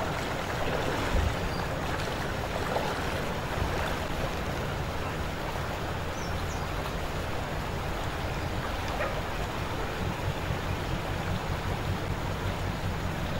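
Fast-flowing floodwater rushing in a strong current, a steady rushing noise.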